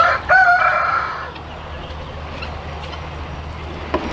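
A farm animal's call: a short note, then one drawn-out pitched call about a second long that ends about a second and a half in.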